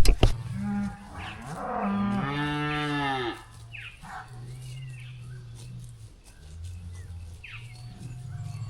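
Cattle mooing as the mob is moved: one long, loud moo starting about a second in, followed by quieter, lower moos.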